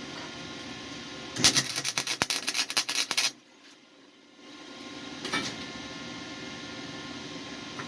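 A JobSmart flux-core wire welder laying a short test bead with its new gun: the arc crackles sharply for about two seconds, starting a little over a second in. The welding is heard over a steady hum.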